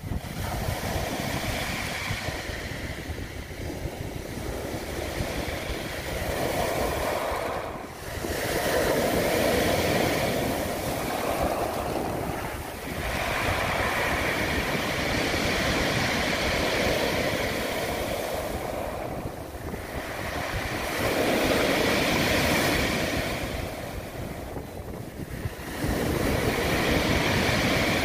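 Sea waves breaking and washing up onto a pebble beach: a rushing hiss that swells as each wave crashes and fades as it drains back, about every four to six seconds.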